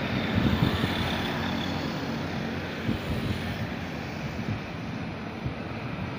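Distant jet airliner engines at an airport runway, a steady rumble that slowly eases off.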